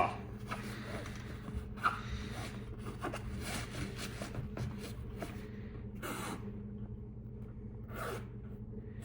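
Rustling and scraping of gear being handled and stowed in a hiking backpack, in short scattered bursts, over a steady low hum.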